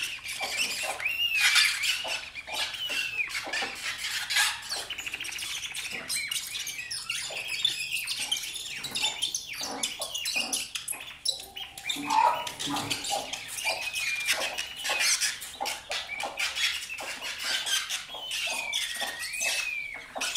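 Bird-like chirps and squeaking glides over dense small clicks and scrapes, made by hands rubbing and working a white bowl.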